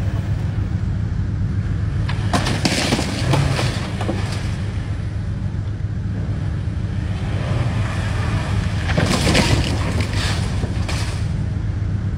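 A van forcing its way through a steel fence gate: under a steady low rumble, a noisy stretch of crashing, scraping metal about two and a half seconds in, and another scraping stretch around nine seconds in.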